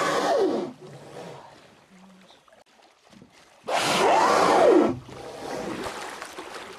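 A young humpback whale blowing twice at the surface. Each blow is a loud, forceful exhale about a second long, with a wheezy tone that rises and then falls. The first comes right at the start and the second about four seconds in.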